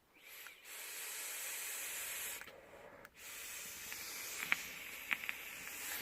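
Electronic vape's tank coil sizzling as the mod is fired and drawn on, in two long hisses of about two and three seconds, with a few faint crackles in the second one.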